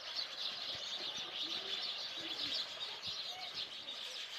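Many small birds chirping together in a dense, continuous chatter, an evening bird chorus.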